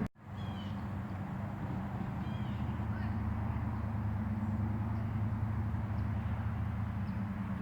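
Steady low engine rumble from a motor vehicle, with a few faint bird chirps over it.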